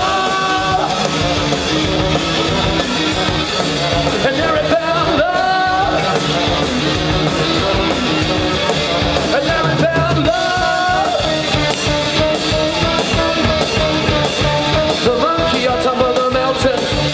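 Live band playing an instrumental passage between sung verses, a melody line over drums with steadily ticking cymbals.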